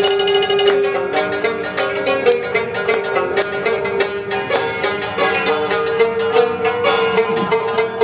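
Afghan rubab played live, a fast run of plucked notes over the ringing drone of its sympathetic strings, with a listener clapping along.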